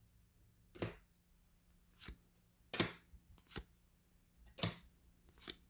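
Trading cards being flicked one at a time off a stack in the hand: six short flicks about a second apart.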